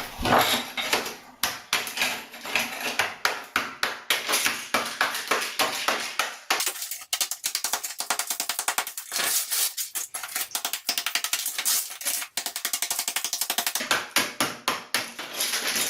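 Hammer and chisel chipping old ceramic floor tile off a plywood subfloor: rapid, repeated sharp strikes, many a second, changing character about six and a half seconds in and again near the end.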